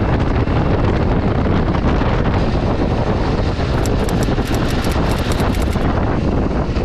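Wind rushing over the microphone of a camera on a KTM adventure motorcycle riding at road speed, with the bike's engine running underneath; steady and loud throughout.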